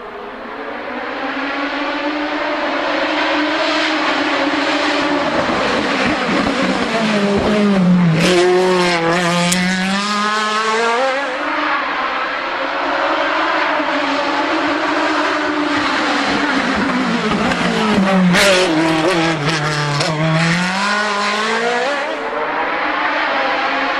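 Hillclimb racing cars' engines at high revs, passing close. The engine note dips sharply and climbs again twice, about eight and nineteen seconds in, with a burst of crackles at each dip.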